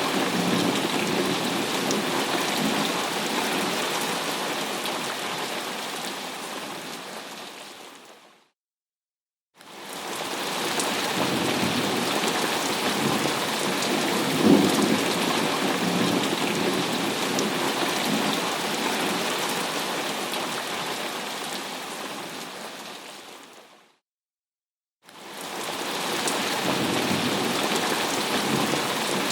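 Thunderstorm: steady heavy rain with low rumbles of thunder, and a louder thunder rumble about halfway through. The recording twice fades out to a second of silence, about 8 s in and again near the end, then fades back in, like a short loop being repeated.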